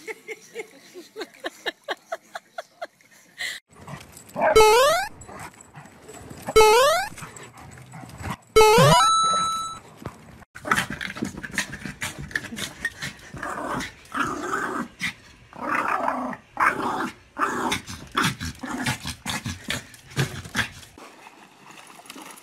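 Dogs vocalising across several short clips: three loud rising cries about two seconds apart, then a long run of shorter, choppy dog sounds.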